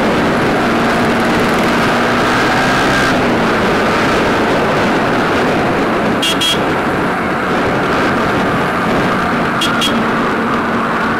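Yamaha R15 V3's single-cylinder engine running at riding speed under a steady rush of wind and road noise, its note dropping about three seconds in. A vehicle horn gives two quick double beeps, about six and ten seconds in.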